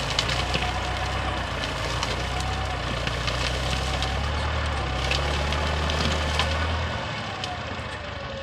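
Tractor engine running under load as it pushes through scrub, with a wavering whine over the low drone and scattered sharp snaps of brushwood breaking. The low engine drone falls away about seven seconds in.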